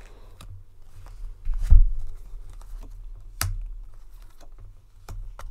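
Tarot cards being handled on a table: scattered light clicks and rustles, a soft low thump a little under two seconds in, and a sharp tick about halfway through.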